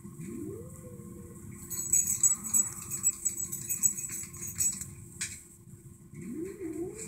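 A dog whining in short rising squeaks, once at the start and again near the end. In between, a rapid high rattle of many small clicks lasts about three seconds and is the loudest sound.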